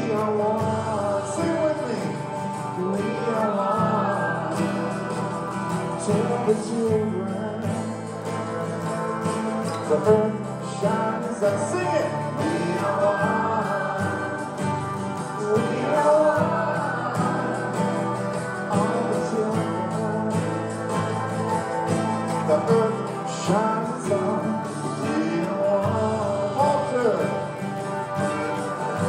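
Country-rock band music from a live recording, with a melody line that slides up and down in pitch over sustained chords, and an acoustic guitar strummed along with it.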